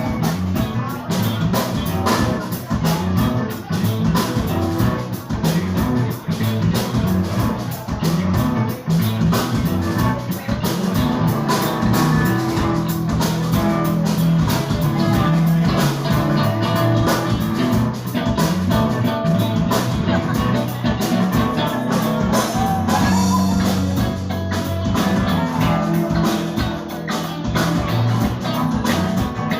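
Rock music with drums and guitar, a fast steady beat.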